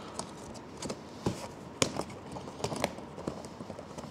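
Scattered light plastic clicks and taps: packaging clips being squeezed and snapped back into place on a cardboard shipping box, with some handling of the box.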